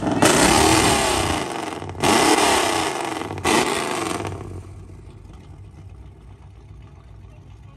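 Lifted Chevrolet pickup's engine revved hard three times through a traffic cone held over the exhaust tip, each rev falling away. About four seconds in it drops back to a quiet, steady idle.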